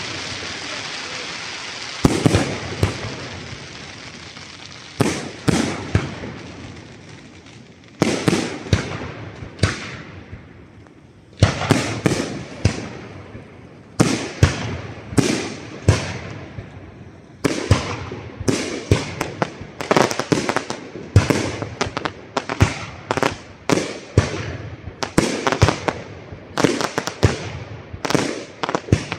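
Aerial firework shells bursting in a large display: sharp bangs, each trailing off into crackling. The bangs come a second or two apart at first, then in a rapid, dense barrage through the second half.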